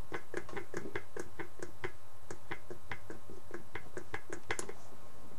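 Ventriloquist dummy's jaw clacking open and shut in quick succession, about five clicks a second, with a short break about two seconds in. The clacking stops just before the end.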